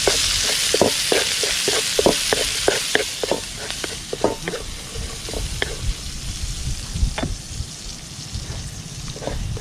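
Chopped ginger and red chili sautéing in a steel wok, sizzling, while a wooden spatula stirs and scrapes against the pan in many short strokes. The sizzle is loudest in the first few seconds and then dies down.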